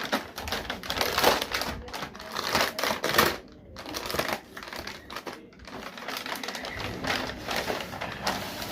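Parcel packaging being handled and opened, rustling and crinkling in quick irregular bursts with brief pauses.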